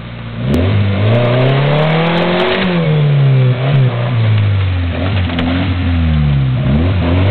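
Pickup truck engine revving hard again and again, its pitch climbing for about two seconds, dropping, then surging up and down, as the truck strains to pull out a tree.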